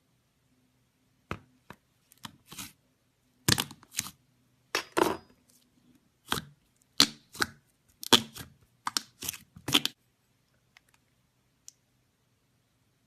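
Slime being squeezed, stretched and torn by hand, giving a quick series of sharp crackles and pops that stops about three seconds before the end.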